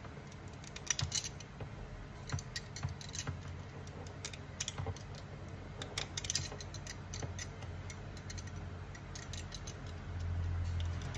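Scattered small clicks and snips of a crimping tool and a RJ45 plug being handled as the leftover wire ends are trimmed off a LAN cable, over a steady low hum.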